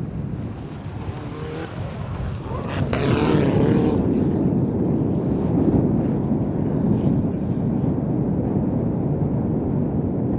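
Mitsubishi Lancer Evolution rally car's turbocharged four-cylinder engine revving hard on a gravel stage, its revs rising and falling, over a steady rush of tyres on gravel. It gets louder about three seconds in.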